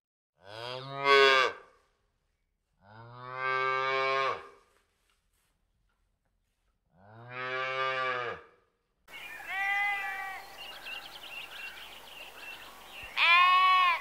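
A cow mooing three times, each low call lasting one to two seconds with silent gaps between them. About nine seconds in, this gives way to sheep bleating over a faint steady background, with the loudest, higher-pitched bleat near the end.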